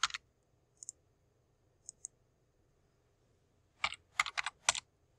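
Keystrokes and clicks on a computer keyboard and mouse. There is one click at the start, a few faint light clicks around one and two seconds in, then a quick run of about six keystrokes near four seconds in.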